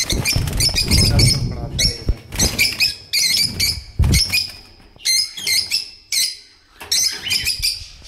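Caged lovebirds chirping in rapid, shrill calls, many at once, with a few low thumps about a second in and about four seconds in.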